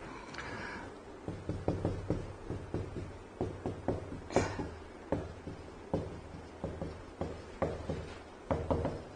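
Writing on a board: irregular light taps and short scratchy strokes, several a second.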